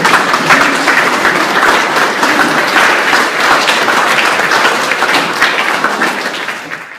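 An audience clapping in a dense round of applause that eases slightly near the end and then stops abruptly.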